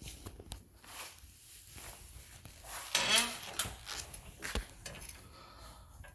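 Scattered clinks, clicks and knocks of tire-change gear being handled, with a brief wavering whine about three seconds in.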